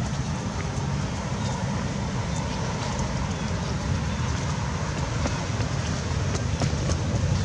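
Steady low rumble of outdoor background noise with a few faint scattered ticks.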